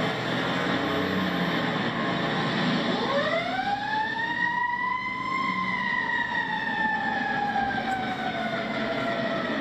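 Fire engine siren winding up quickly about three seconds in, then slowly falling in pitch, over a steady truck engine rumble.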